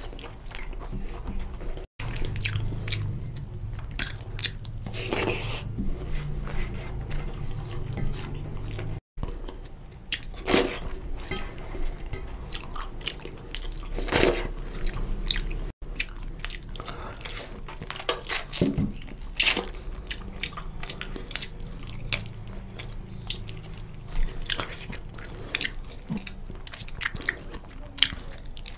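Close-miked chewing and mouth sounds of a man eating curried fried rice and chicken by hand, with sharp clicks scattered all through. The sound drops out for an instant three times.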